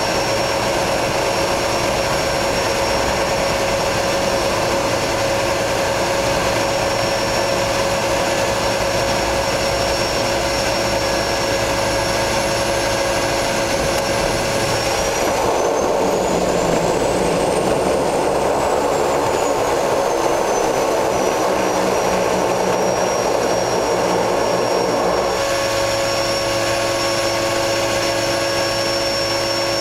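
Turbo Otter floatplane's turboprop engine and propeller running, a steady whine over a rushing drone as the plane comes down onto the lake and runs on the water. About halfway through, the high whine rises in pitch and falls back over several seconds while the rushing noise grows louder, then settles to the steady note again.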